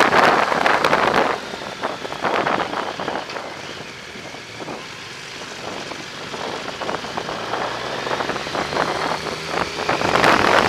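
Wind buffeting the microphone on a moving Yamaha motorcycle, with its engine running underneath. The wind noise is loud at first, drops away about a second in so the engine comes through more plainly, and builds up again near the end.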